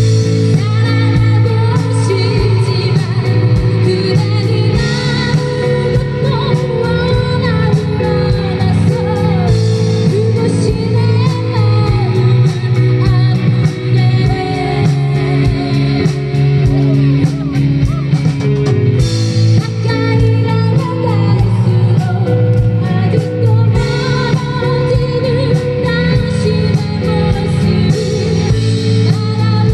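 Live band amplified through a PA: a woman singing over strummed acoustic and electric guitars and bass, with a steady beat.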